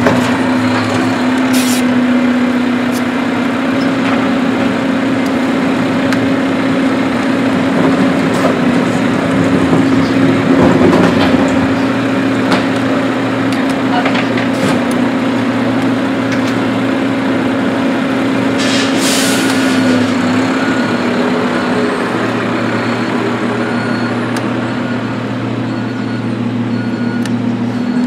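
Steady low drone of a helicopter overhead, with a few sharp plastic clicks and rattles from a toy garbage truck and its can being handled.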